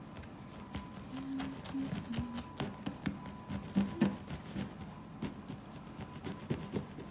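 Knife cutting through a cheesecake in an aluminium foil pie tin: irregular small clicks and taps as the blade presses and scrapes against the foil pan.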